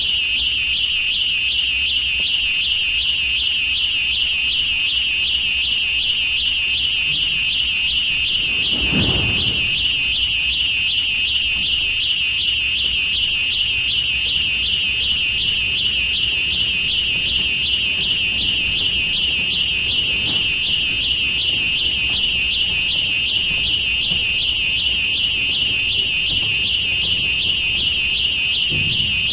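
Railroad crossing bell ringing continuously in a rapid, even, warbling trill over a low rumble, with a brief swell of noise about nine seconds in.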